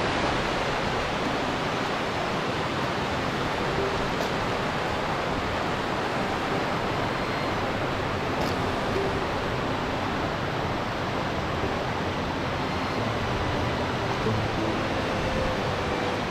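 Steady rush of white water from a mountain creek cascade, an even sound that does not change through the whole stretch.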